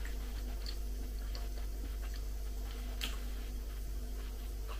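Quiet sips from a mug, with small soft mouth clicks and one sharper click about three seconds in, over a steady low hum.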